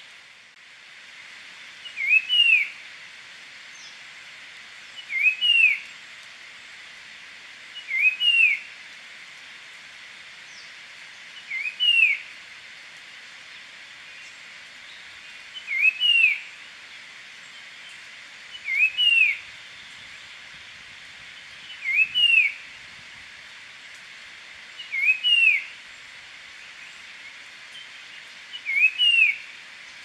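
Puff-throated babbler singing: a whistled two-note phrase, a short note followed by a louder one that rises and falls, repeated nine times about every three seconds over a steady background hiss.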